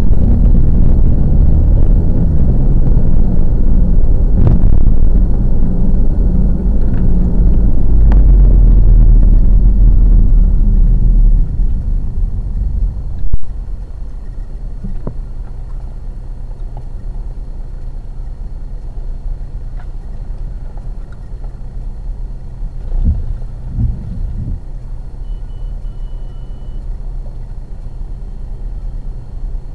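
Car running as heard inside the cabin through a dash cam: a loud low engine and road rumble while driving, which drops off about eleven seconds in as the car comes to a stop in traffic, leaving a quieter steady idle hum. A sharp click comes shortly after the car stops.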